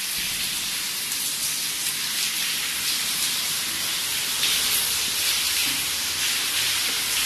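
Rainwater leaking in through the roof after roofing work, running and splashing down a stairwell's walls and steps in a steady hiss.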